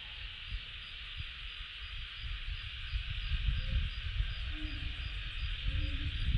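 Cicadas singing in a constant steady drone, with a faint regular pulsing in it. A low rumbling noise runs underneath and grows louder toward the end.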